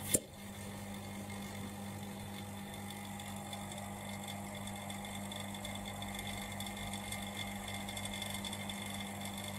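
Small motor running with a steady hum, the vacuum tester's pump drawing vacuum on an exhaust valve port of the cylinder head; the exhaust valve is holding about 0.8 to 0.9, a good seat seal. A single sharp click just at the start.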